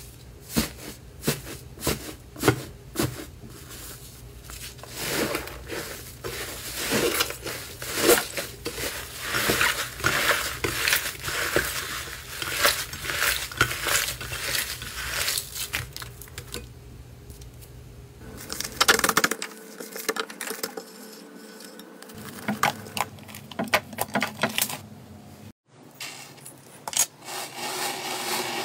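Hands tearing apart and squeezing a crumbly, crunchy slime speckled with glitter sequins: many small crackles, pops and tearing sounds, thick through the first two-thirds. In the last few seconds there are softer pressing sounds from a hand on a smoother slime.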